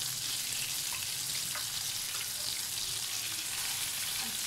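Beef patties sizzling steadily in hot oil in a flat nonstick pan as they are turned over with a wooden spatula and a metal slotted turner, with a few faint scrapes of the utensils.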